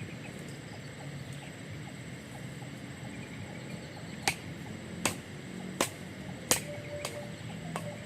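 A series of sharp knocks, about four in a row spaced under a second apart and a couple of fainter ones after, starting about halfway through over a steady background noise.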